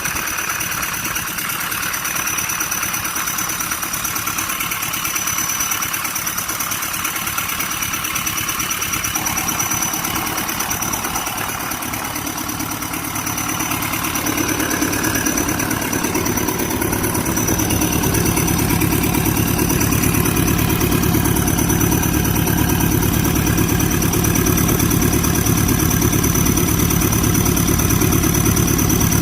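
Hino J05E turbo-diesel engine of a Kobelco SK200-8 excavator running on test after a top overhaul. About halfway through it picks up, growing louder and heavier in the low end, and it holds there. A thin steady high tone runs throughout.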